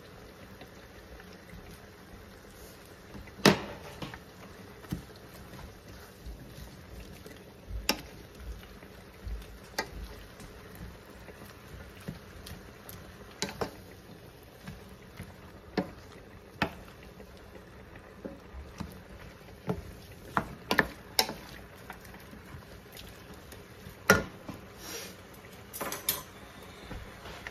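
Napa cabbage and chorizo sizzling in a stainless steel pan, with a wooden spatula knocking and scraping against the pan at irregular intervals every few seconds as the food is stir-fried.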